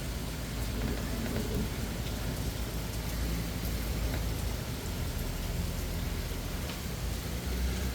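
Steady rain falling: an even hiss with scattered drop ticks, over a low rumble.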